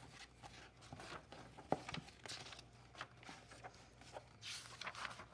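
Pages of a picture book being turned and pressed flat by hand: faint paper rustling with small clicks, a sharper tick about a second and a half in and a short swish of paper near the end.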